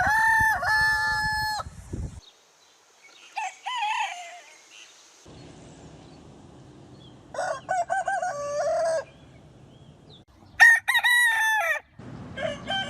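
Roosters crowing one after another: five crows from a series of different birds, each a drawn-out cock-a-doodle-doo. The second crow, about three and a half seconds in, is fainter than the rest.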